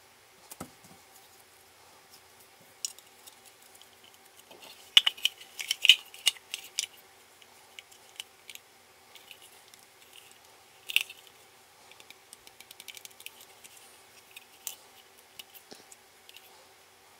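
Plastic Play-Doh toy molds clicking and clacking as they are handled and modelling dough is pressed into them. There is a cluster of sharp clacks about five to seven seconds in, another clack about eleven seconds in, then light ticking, over a faint steady hum.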